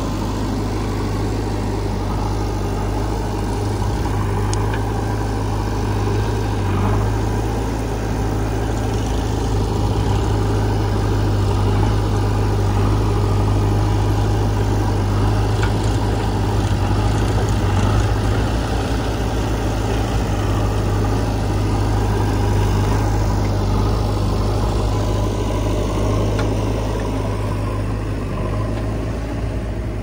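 Diesel engines of a JCB 3DX backhoe loader and a Sonalika tractor running steadily, a deep hum, a little louder in the middle while the backhoe works.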